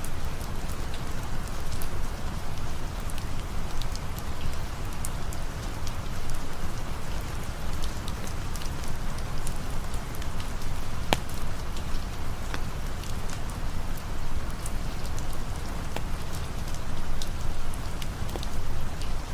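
Steady rain falling, with scattered sharp crackles from a campfire mixed in.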